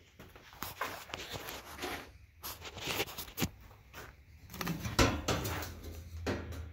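A metal car grille being handled on a metal-topped workbench: irregular clattering, knocks and scraping as it is gripped, lifted and turned over, with one sharp knock about five seconds in.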